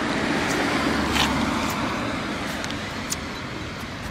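A road vehicle passing on the street: road noise that swells to a peak about a second in and fades away, with a few light clicks.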